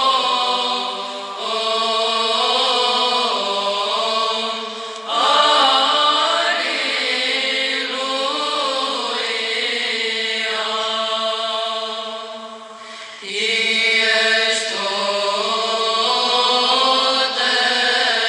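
Byzantine chant: voices singing long held phrases of a slow melody, with short breaks between phrases.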